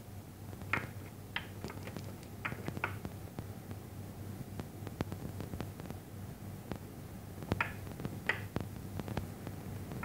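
Small plastic balls on a toy pool table clicking together in scattered sharp knocks as a small white parrot pushes them with its beak, with a cluster in the first few seconds and more later on. A steady low hum runs underneath.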